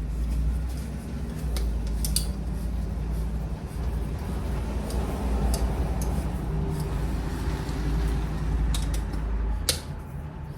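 Hand-tool work on a plastic mud flap and its mount: scattered irregular clicks and creaks of tools and parts being handled, over a steady low hum.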